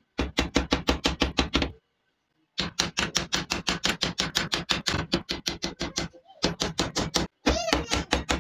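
Small hammer tapping rapidly on the metal pins of a meat cleaver's wooden handle, setting the rivets. About seven light blows a second in quick runs, with a short pause about two seconds in and another near the end.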